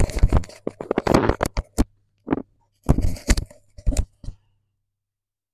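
Close handling noise: a quick run of sharp knocks, clicks and rustles for about four seconds, then only a steady low hum.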